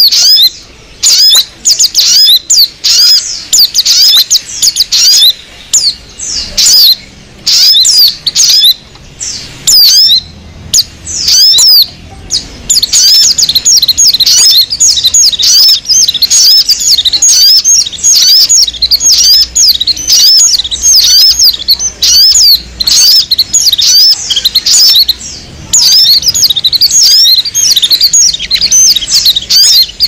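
Loud, rapid chirping and twittering of many small songbirds, a bird-lure recording of mixed songbird chatter. It comes in short bouts at first, then runs without pause from about twelve seconds in.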